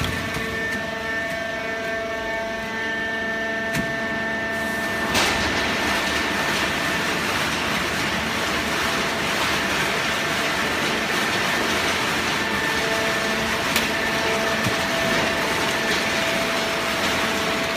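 Hydraulic cardboard baling press running: a steady machine hum with several held tones, growing noisier about five seconds in, with a couple of sharp clicks.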